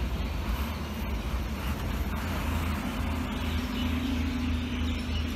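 Car running, a steady low rumble of engine and road noise, with a faint engine hum coming up about halfway through.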